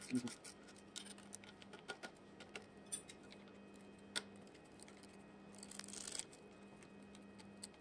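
Light clicks and taps of metal parts being handled as a stepper motor is fitted by hand onto its aluminium mount and shaft coupling, with a brief rustle about six seconds in, over a faint steady hum.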